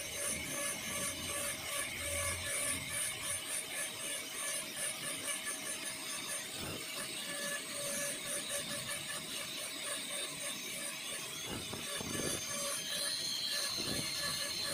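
Dental high-speed handpiece with a tapered diamond bur grinding the occlusal surface of a plastic typodont molar, reducing the lingual cusp for a full metal crown preparation. It makes a steady whine with fast pulsing grinding.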